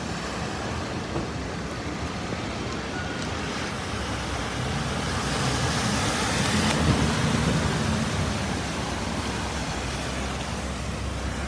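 A car driving through floodwater, its tyres throwing up a heavy splash and spray; the wash of water swells as it passes close, about halfway through, then dies back to a steady hiss.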